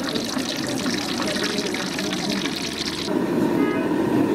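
Street-food stall ambience: a babble of many voices with a crackly hiss and small clatter, changing abruptly about three seconds in to a duller background of voices.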